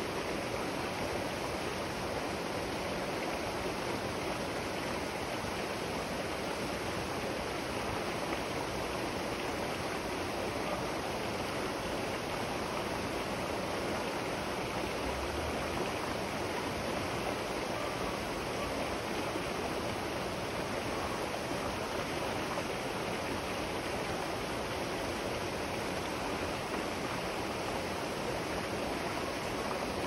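A river's water rushing steadily, an even noise with no change in level.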